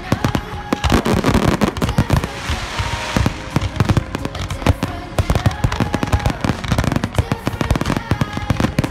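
Firework display: a dense barrage of shells bursting, with many sharp bangs and crackles a second that never let up.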